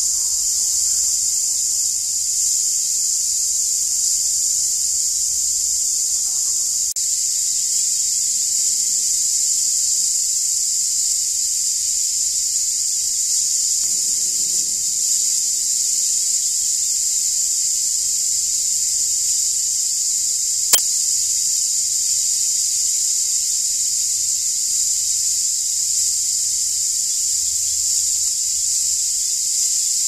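Cicadas calling: a loud, steady, high-pitched buzz with no breaks. A single sharp click sounds about two-thirds of the way through.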